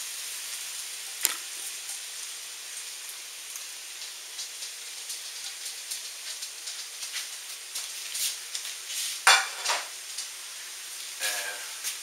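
Diced bell peppers, onion and tomato sizzling in hot olive oil in a preheated frying pan, a steady hiss. A few sharp clicks and knocks break through it, the loudest about nine seconds in and more near the end.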